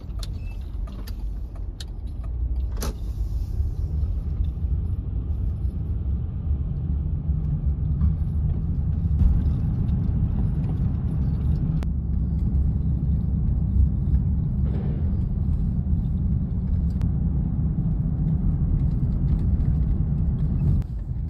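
Steady low rumble of a car driving, engine and tyre noise heard from inside the cabin, with a few small clicks in the first three seconds.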